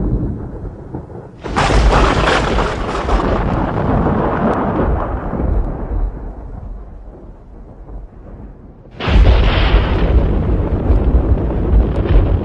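Thunder: a sudden crack about a second and a half in that dies away into low rumbling, then a second sharp crack near the end that rumbles on.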